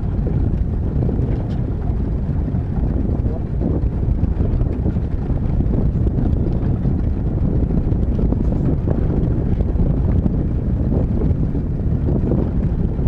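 Steady wind rumbling on the microphone aboard a small boat at sea.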